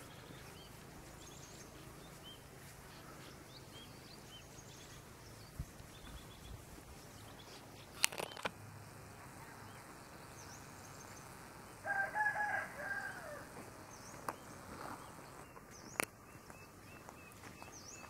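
A rooster crowing once, about a second and a half long, over small birds chirping. Two sharp clicks stand out, one about eight seconds in and one near the end.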